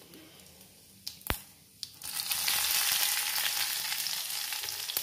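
Tempering in an iron kadai: broken dried red chillies frying in hot groundnut oil with urad dal and mustard seeds. There is one sharp click about a second in, then a steady sizzle starts about two seconds in.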